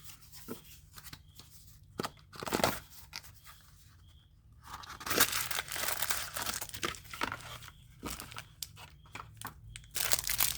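Packaging being handled and torn open while a pen is unboxed. Scattered clicks and knocks come first, then steady crinkling and tearing from about five seconds in.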